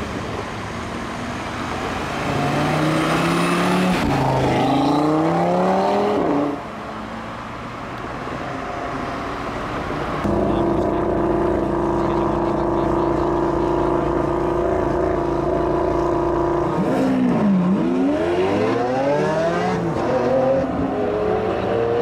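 Audi RS3 Sportback's 2.5-litre turbocharged five-cylinder with an Audi Sport exhaust accelerating hard, its pitch rising through an upshift. Later it and a Lamborghini Aventador's V12 hold steady raised revs for several seconds, then launch, the revs climbing, dropping back at each upshift and climbing again.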